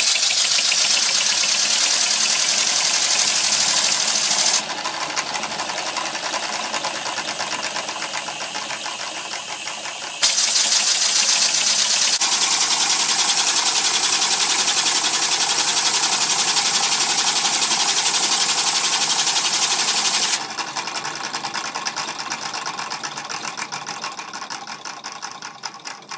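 Homemade model steam engine's crank, piston and valve gear turning fast, a rapid mechanical clatter with a loud hiss. It drops in level about five seconds in, picks up again about ten seconds in, then slows and fades over the last six seconds as the flywheel coasts down.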